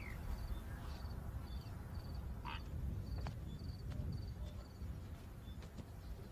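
Natural outdoor ambience: a short high insect chirp repeats about twice a second, with two brief rising bird calls, one at the start and one about two and a half seconds in, over a steady low rumble.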